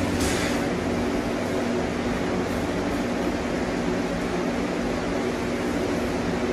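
Steady mechanical hum of a running room appliance, with a few level tones in it. A brief crunch comes right at the start as a bite is taken from a slice of crisp-crusted pizza.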